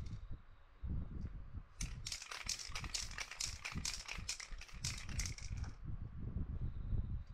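Aerosol spray paint can let off in quick short bursts, about five a second, starting about two seconds in and stopping near six seconds.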